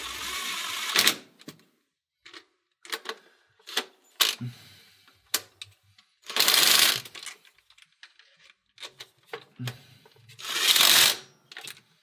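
Small cordless impact running bolts down in three short spurts, near the start, about halfway and near the end, snugging the motor mount bolts without torquing them. Scattered short metallic clicks and ticks come between the spurts.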